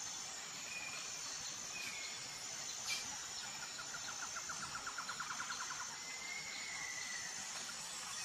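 Faint nature ambience: insects chirring high and steady, with a few short bird chirps and, around the middle, a quick trill of about ten pulses a second.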